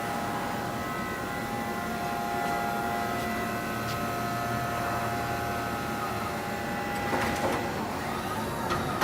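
Sugino CNC PRO-607 machining centre running with a steady whine of several tones. About seven seconds in the tones stop, followed by a few clicks and knocks.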